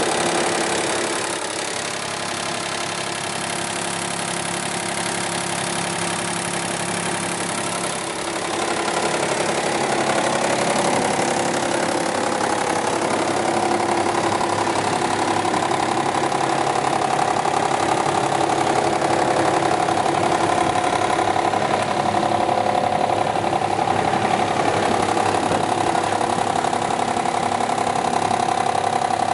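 A ŻEFAM DDRBA 44 electric drum wood chipper-shredder running with no wood being fed, together with the diesel generator set that powers it: a steady mechanical hum that grows a little louder about eight seconds in.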